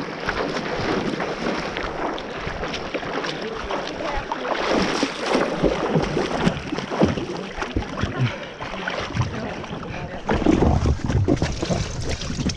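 River water splashing and churning close to the microphone as a swimmer strokes through it, with a louder low rumbling stretch about ten seconds in.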